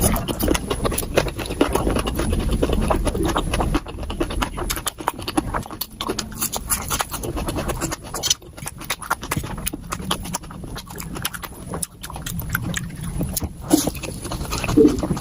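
Mukbang eating sounds played back sped up: a rapid, continuous stream of chewing, crunching and slurping clicks.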